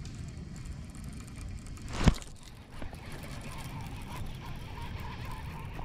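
A single sharp knock about two seconds in, with a smaller one shortly after, over a steady low rumble.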